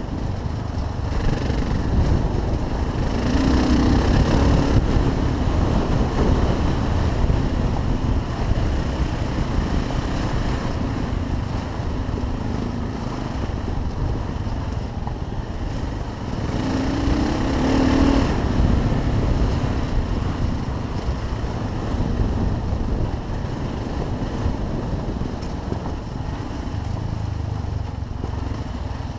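Motorcycle engine running under way on a dirt track, heard through heavy wind noise on a helmet-mounted microphone. The engine note rises twice, about four seconds in and again around seventeen seconds.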